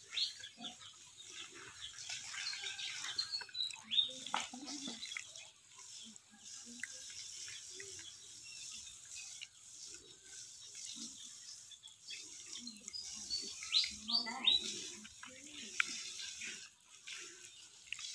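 Water spraying from a garden hose onto a zebu cow's hide, a steady hiss, with a few short high chirps now and then.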